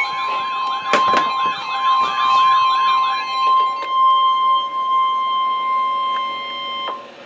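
NOAA Weather Radio warning alarm tone: a steady high-pitched tone that cuts off sharply near the end. Over the first three seconds a warbling alarm tone rises and falls about twice a second on top of it, with two clicks about a second in.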